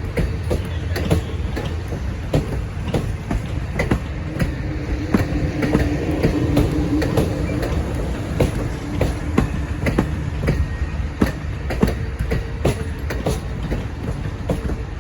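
Amtrak Auto Train cars rolling past close by: a steady low rumble of wheels on rail, with irregular sharp clicks over the rail joints. A faint held whine rises in the middle for a few seconds.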